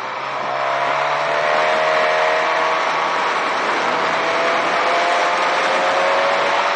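Inline-four motorcycle engine pulling steadily through the gears' midrange, its pitch climbing slowly as the bike gathers speed from about half a second in, over constant wind and road noise on the microphone.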